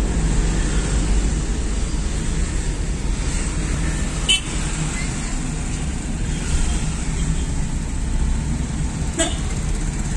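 Steady low rumble of engine and road noise from a vehicle driving through town traffic, with short horn toots from the traffic about four seconds in and again near the end.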